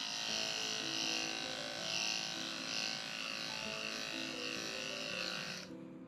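Electric dog-grooming clippers running steadily, buzzing as they shave through a matted coat, then switched off abruptly near the end.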